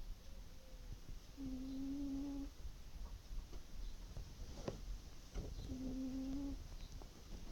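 Gentle snoring: two soft, steady humming snores, each about a second long and about four seconds apart, with a few faint clicks between them.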